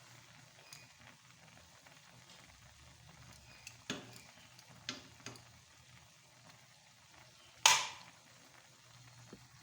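Faint simmering of a pot, with a few light clicks of metal tongs against the pan as tomato skins are lifted off, then one sharp metallic clank with a short ring near the end.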